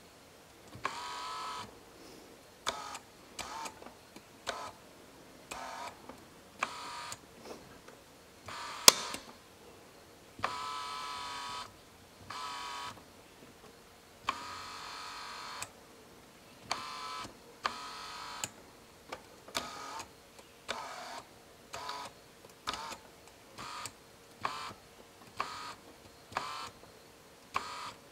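Mercedes W124 electric side-mirror adjuster motor whirring in many start-stop bursts, some brief and some a second or more long, as the replacement mirror glass is tilted back and forth; the adjuster works. A sharp click about nine seconds in is the loudest sound.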